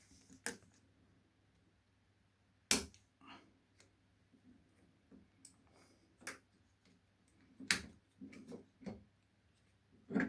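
A series of sharp clicks and knocks from small hard objects being handled: about five loud ones spread unevenly across ten seconds, with softer taps between.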